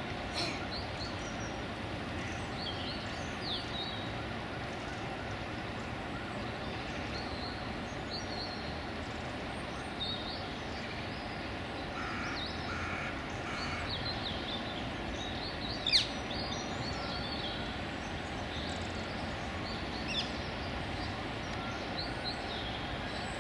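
Outdoor park ambience: a steady low background hum with small birds chirping and calling now and then. One short, sharp sound about sixteen seconds in is the loudest thing.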